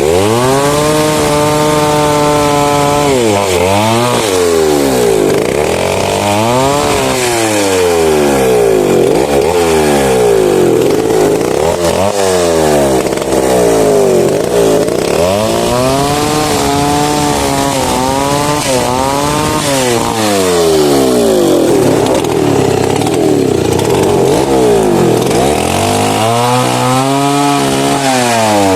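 Chainsaw running and cutting wood, its engine pitch rising, holding and dropping back again and again every few seconds as the throttle is opened and eased off.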